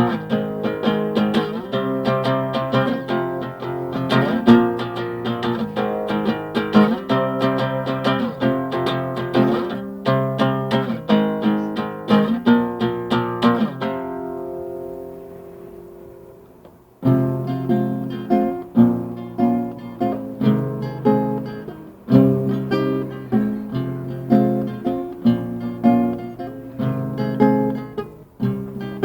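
Acoustic guitar playing a piece of plucked and strummed chords. About fourteen seconds in, a chord is left ringing and fades away for a few seconds before the playing starts again.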